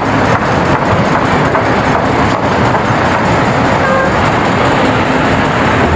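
Heavy diesel engines of a large mining excavator and dump truck running steadily, a loud constant machine noise.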